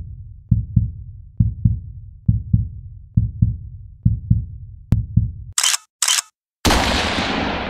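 Heartbeat sound effect: paired low thumps repeating a little under once a second. Then two short sharp clicks and a single loud gunshot that rings and fades over about a second.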